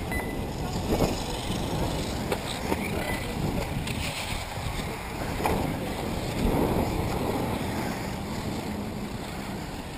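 Wind rumbling on the microphone, with a few faint knocks.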